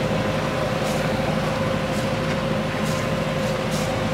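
Sailboat engine running steadily under way: a low drone with a steady higher hum over it, and some wind and water hiss.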